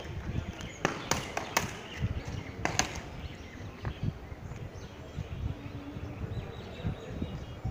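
Several sharp knocks in the first three seconds over steady outdoor background noise, with faint bird chirps.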